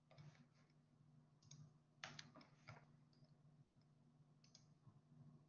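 Near silence: a few faint, short clicks scattered over a low steady hum.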